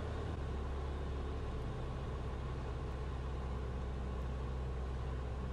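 Steady drone of a single-engine light aircraft's piston engine and propeller, heard inside the cabin in level flight.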